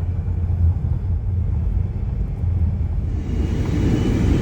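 Low, uneven rumble of strong wind buffeting the phone's microphone.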